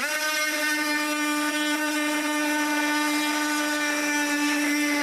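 Oscillating multi-tool with a diamond blade cutting through cement board: a steady high-pitched buzzing whine that holds one even pitch throughout.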